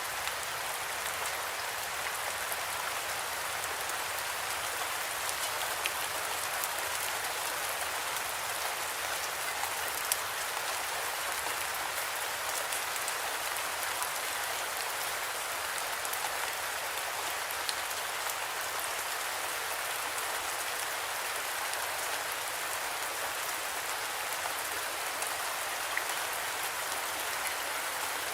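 Steady rain falling, an even hiss with the odd louder drop ticking now and then.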